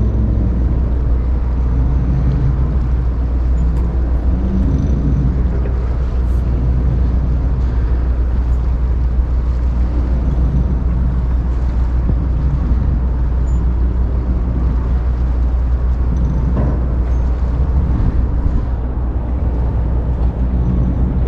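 Ferry engine running with a steady low rumble.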